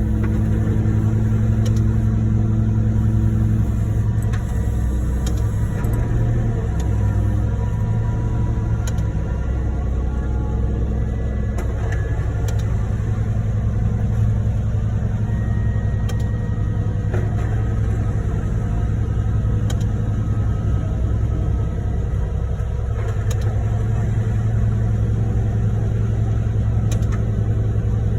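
Heavy diesel truck engines running steadily at a concrete pump truck and ready-mix truck, a continuous low rumble as the pump is primed.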